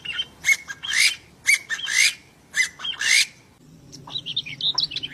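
Zoo birds calling: a series of about seven loud, harsh squawks, roughly one every half second, then softer, higher chirps in the last second or so.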